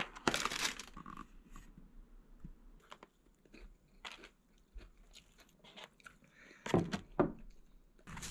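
Crispy fried chicken being bitten and chewed close up: scattered crunches, the loudest just after the start and again near the end.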